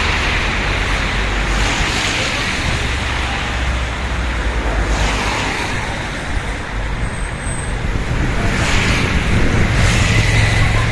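Road traffic going by: a steady rush of tyre noise and engine hum, with three vehicles passing in swells.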